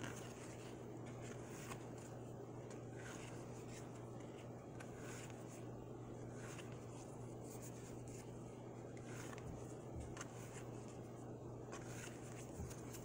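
Topps baseball cards being flipped through by hand: faint, scattered slides and flicks of card stock against card stock, over a steady low hum.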